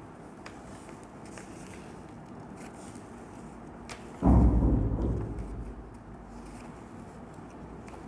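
Steady low room hum, broken about four seconds in by a sudden heavy thump that dies away over about a second and a half.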